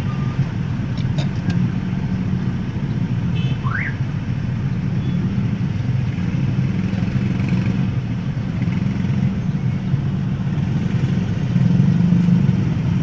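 Steady low hum of idling engines, heard from inside a car at a standstill in a traffic jam with motorcycles packed close around it. A few faint clicks sound just over a second in, and a short rising tone nearly four seconds in.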